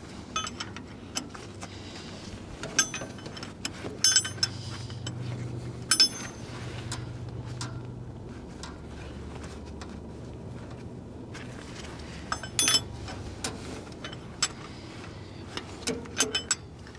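A wrench and bolts clinking against metal as a tractor starter is bolted back into place. Scattered sharp clicks come over a low steady hum.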